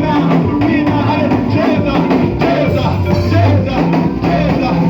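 Live church praise music: a band with drum kit and bass guitar playing a steady beat under singing voices.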